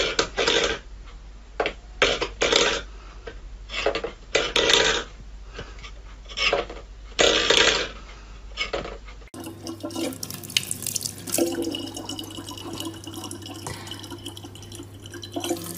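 Stainless steel pet bowl scraping and clattering on a wooden floor under a cat's paw, in a string of short separate bursts. About nine seconds in it gives way to a thin stream of tap water running into a plastic bottle, a faint steady hiss over a low steady hum.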